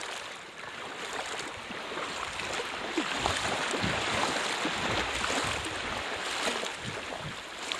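Small waves washing and splashing onto a sandy shoreline, a steady hiss of water that swells louder from about two seconds in.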